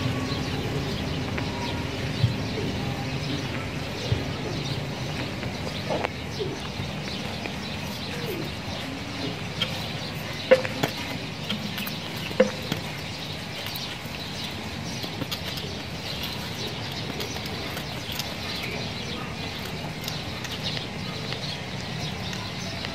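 Steady outdoor background noise with birds chirping now and then, and a few short sharp clicks.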